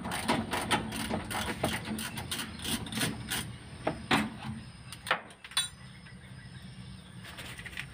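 Socket ratchet wrench clicking in quick, irregular runs as a bolt on the Gran Max's left engine mount is worked loose. The clicking thins out about halfway through, followed by a single sharp metallic clink.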